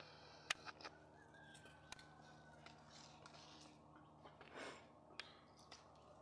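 Near silence with a faint steady hum, a few small sharp clicks and one brief rustle a little past halfway, as a cat noses and scratches in dry garden soil.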